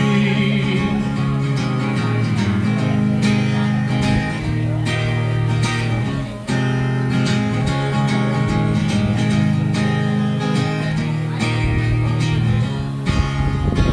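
Steel-string acoustic guitar strummed in a steady rhythm, playing chords in an instrumental passage of a song, with a momentary break about six and a half seconds in.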